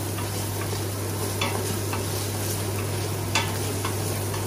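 Diced smoked bacon lardons sizzling as they brown in an Instant Pot's stainless steel inner pot on sauté, stirred steadily with a spoon. The spoon scrapes sharply against the pot twice, about a second and a half in and again near the end.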